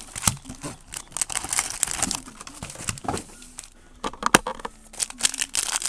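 Trading card packaging being handled and torn open: wrapper crinkling and tearing, with many sharp crackles and clicks.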